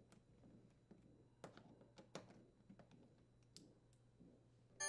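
Near silence with a few faint, scattered clicks from a Torx screwdriver loosening the dishwasher's door latch mounting screws.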